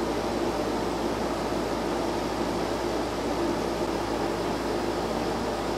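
A steady, even hum and hiss of background noise with no distinct events, of the kind a running fan makes.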